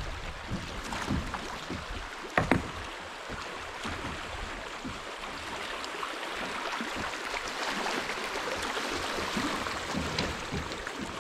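Shallow creek water rippling and rushing over gravel around a kayak, a steady wash that swells a little through the second half. A sharp double knock stands out about two and a half seconds in.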